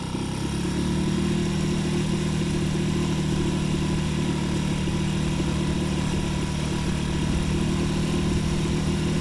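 Mariner 2.5 hp four-stroke single-cylinder petrol outboard opened up, growing louder over the first second, then running steadily under load as it pushes a dinghy against the tide.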